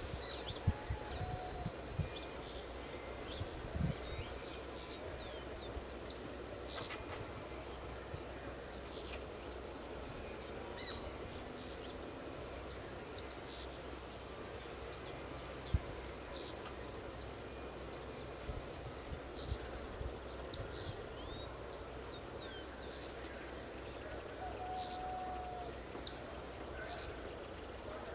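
Steady, high insect chorus with a fine pulsing, under scattered short, high bird notes that drop in pitch.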